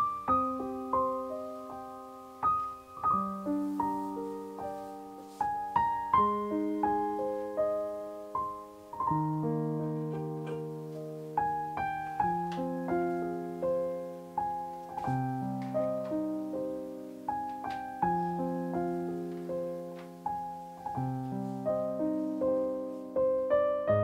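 Background solo piano music, slow notes and held chords, each note struck and fading away.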